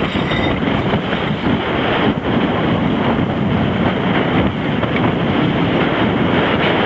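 Wind blasting across the microphone over rushing water and spray as a racing yacht sails hard, a loud, steady roar without a break.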